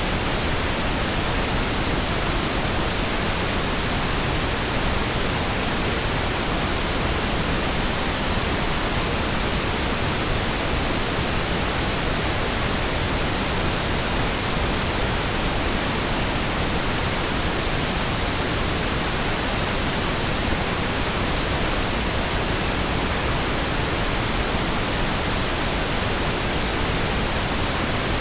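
Synthetic pink noise: a steady, even hiss spread across the whole frequency range, with no changes or breaks.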